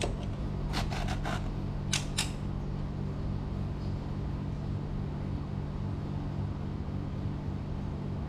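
A few sharp metal clicks in the first two seconds, as a T-handle socket wrench is handled and set down on a tiled floor beside a scooter's gear-oil drain bolt, then only a steady low hum.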